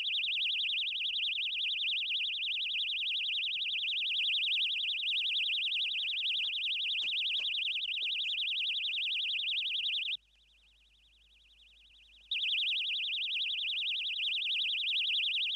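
A loud, high-pitched electronic warbling tone blares from a loudspeaker horn as noise torture. It cuts off about ten seconds in and comes back about two seconds later.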